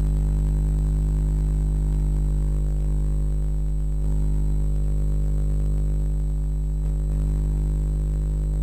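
Steady electrical hum and buzz, a low drone with many overtones that stays level and unchanging throughout, with a faint thin high whine above it.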